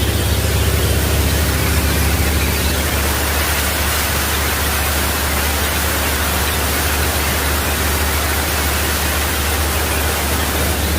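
Engine-driven wood chipper running at speed: a loud, steady rushing noise over a constant low engine hum.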